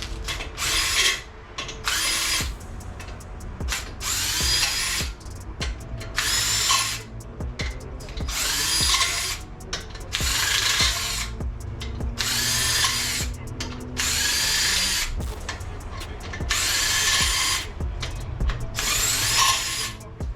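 Short, repeated blasts of pressurised air or cleaner hissing through the oil passages of a bare Honda engine block, about ten in all, each lasting up to a second or so, some with a faint whistle.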